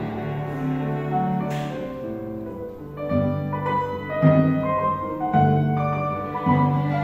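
Piano trio of violin, cello and grand piano playing classical music together, the bowed strings holding long notes over the piano. From about three seconds in, the music moves in accented low notes roughly once a second.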